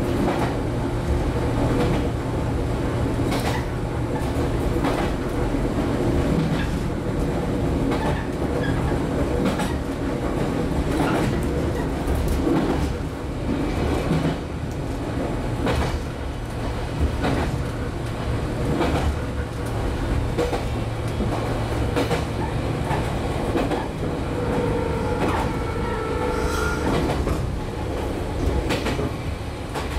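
Running sound inside the passenger cabin of a JR 115-series electric multiple unit (motor car KuMoHa 115-302): steady hum of the traction motors and rumble of the wheels, with repeated clacks as the wheels pass over rail joints.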